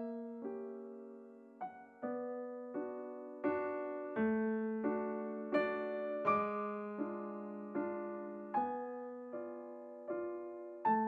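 Background piano music: slow, evenly paced chords, one struck about every three quarters of a second and left to ring and fade before the next.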